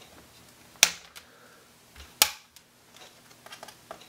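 Two sharp plastic clicks about a second and a half apart, then a few light ticks near the end, as a flat-blade screwdriver pries at a laptop's plastic hinge cover to pop it loose.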